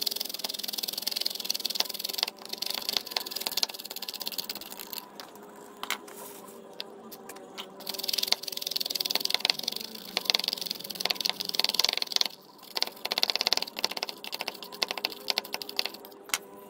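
Epsom salt being worked down a plastic funnel into a motorcycle battery's cell with a small screwdriver: rapid, fine scratching and ticking in stretches of a few seconds, with short pauses between them.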